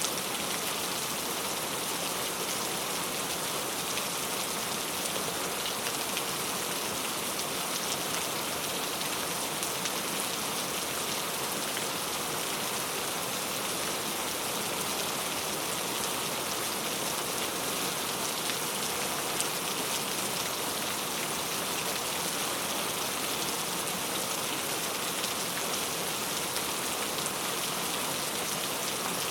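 Steady rain falling on a surface, an even hiss with fine pattering drops and no change in strength.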